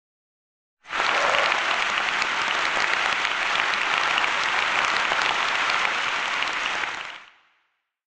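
Audience applause, many hands clapping at once. It comes in abruptly about a second in, holds steady and fades out near the end.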